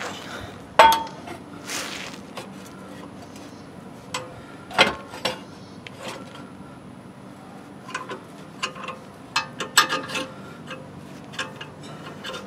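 Metal-on-metal clinks and knocks as a steel C-clamp and threaded rod are handled and set against a steel axle truss. A sharp ringing clink comes about a second in, then scattered clinks, bunched more closely in the last few seconds.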